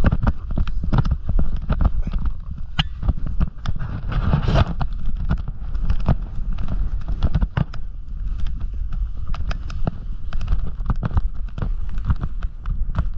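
Snowboard riding through chopped-up powder, heard through a mounted action camera. There is a constant rumble of wind on the microphone, and dense, irregular knocks and rattles as the board chatters over the bumps.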